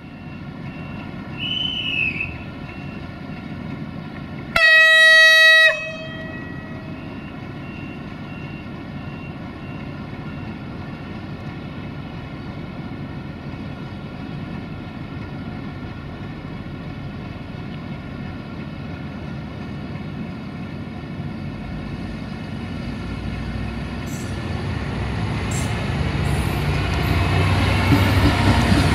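A train horn sounds one loud blast of about a second, about five seconds in, over a steady diesel engine hum. A short falling squeal comes just before it. Near the end a train's rumble grows steadily louder as it draws nearer.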